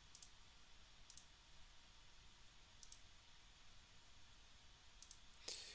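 A few faint, separate computer mouse clicks against near silence, as desktop application windows are closed.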